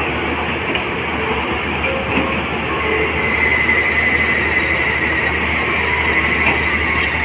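Caterpillar long-reach crawler excavator running, its diesel engine giving a steady low hum under a continuous high whine as the machine shifts on its tracks. The whine grows stronger a few seconds in.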